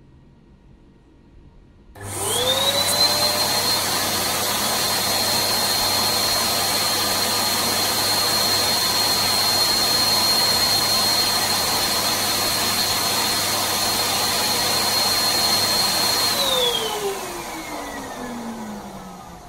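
Electric balloon pump switched on about two seconds in, its motor whine rising quickly to a steady pitch over a rush of air as it inflates a balloon. Near the end it is switched off and the whine falls away as the motor spins down.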